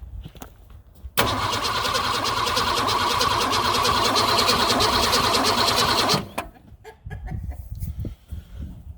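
A Ford Falcon's engine cranked by the starter motor for about five seconds with an even pulsing beat, starting suddenly about a second in and cutting off suddenly, without catching. The owners suspect poor fuel delivery or timing.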